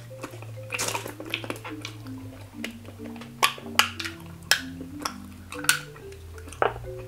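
Soft background music with a slow melody of held notes, over which come several sharp clicks and snaps, about five in the second half, as a bottle and its cap are handled.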